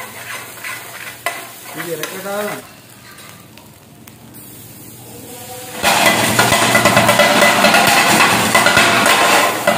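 Kottu roti being chopped on a flat iron griddle: two metal kottu blades clatter rapidly against the griddle, loud and continuous from about six seconds in. Before that, a ladle scrapes and taps more softly on the griddle.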